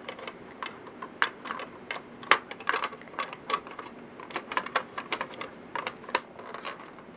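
Plastic cover of a smoke alarm being handled and pushed onto its base: an irregular run of light plastic clicks and taps, the sharpest about two seconds in and about six seconds in.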